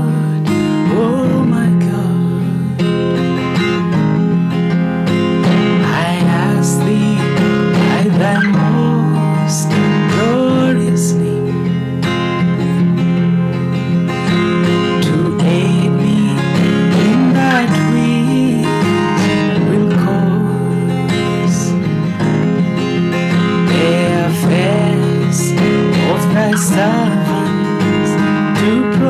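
Acoustic guitar strummed steadily, with a man's voice singing a slow melody over it at intervals.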